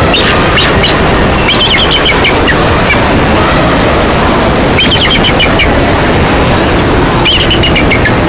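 Animal stampede: a loud, continuous rumble of many hooves, with short bursts of high calls from the animals four times, near the start, about two seconds in, about five seconds in and near the end.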